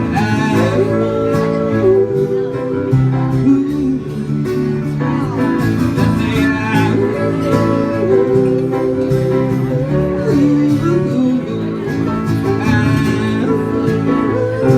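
Country-style band playing an instrumental break, with guitars and a sliding lead melody line over the accompaniment.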